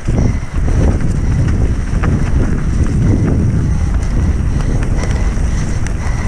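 Wind buffeting the microphone of a camera riding on a mountain bike at speed downhill, a steady low rumble with tyre and trail noise and a few faint clicks and rattles.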